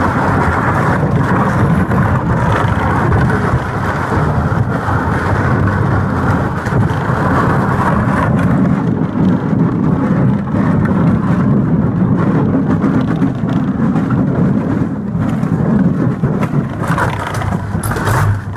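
Small boat's hull dragged over a dirt and gravel road, a loud steady rumbling scrape.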